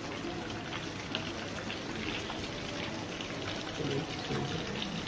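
Coated chicken frying in hot oil: a steady sizzle with scattered crackles.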